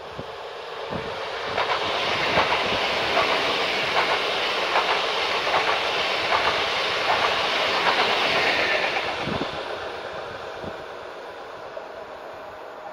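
Pesa Dart ED161 electric multiple unit passing: a rush of wheel and rail noise that builds, stays loud for several seconds with repeated clicks from the wheels over rail joints as the cars go by, then fades away.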